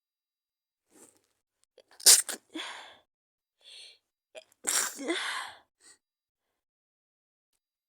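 A woman with a heavy cold sneezing twice, about two and a half seconds apart, each a sharp burst trailing off into a voiced tail, with a faint breath before each.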